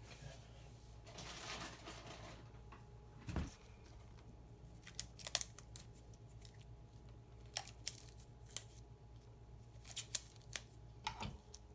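Small metal watchmaker's tools and watch parts being handled on the bench: scattered sharp little clicks and taps, most of them in the second half, with one dull bump about three and a half seconds in.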